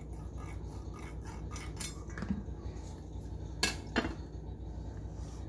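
Light clinks and taps of a kitchen knife and a stainless steel mixing bowl while a raw chicken is tied with twine, with two sharper clicks about three and a half and four seconds in, over a low steady hum.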